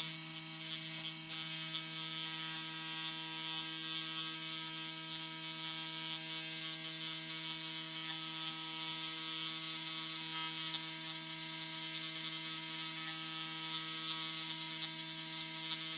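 Pullmax reciprocating sheet-metal machine running with a steady electric hum and a higher hiss on top, its forming tool working a round sheet-metal disc as it is fed around to smooth a shallow dish.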